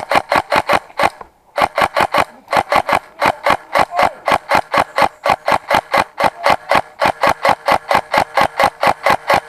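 WE Katana M4 airsoft rifle firing a rapid string of semi-automatic shots, about six a second, with a brief pause about a second in.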